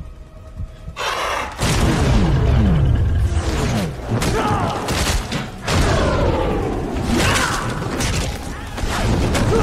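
Film action-sequence sound mix: after about a second of quiet, a sudden loud boom, then dense layered effects with pitches sweeping downward and several heavy impacts over music.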